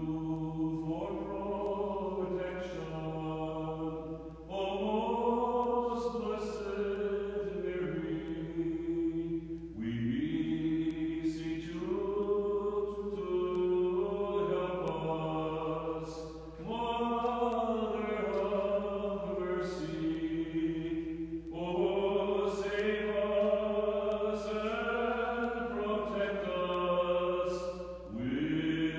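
A man's solo voice chanting an Orthodox liturgical hymn in long sustained phrases of a few seconds each, with brief breaks for breath between them.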